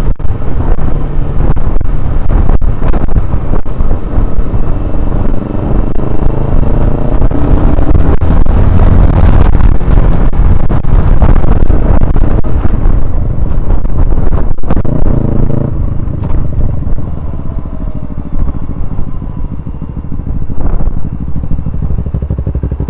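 Honda CBR125R's small single-cylinder four-stroke engine running while the motorcycle is ridden. The revs climb steadily about a quarter of the way in, then ease off about two-thirds of the way in and it runs a little quieter.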